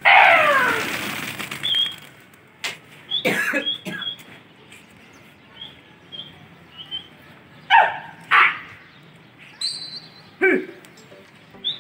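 A flock of pigeons taking off together with a loud clatter of wings at the start, fading over about two seconds. After it come small high chirps and a few short, loud animal calls.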